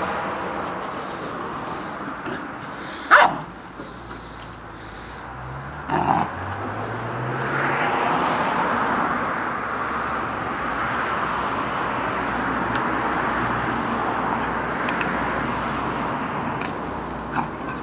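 Black Labrador puppy giving a short, loud bark about three seconds in, another about six seconds in and a softer one near the end, over a steady background rush.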